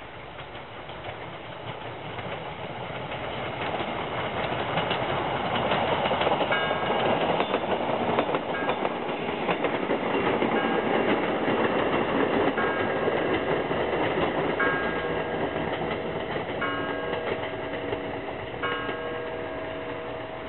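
A FEVE 2400-series diesel railcar unit coming in and passing, its noise swelling to a peak near the middle and then fading. Over it, from about a third of the way in, a church bell strikes the hour, one ringing stroke about every two seconds.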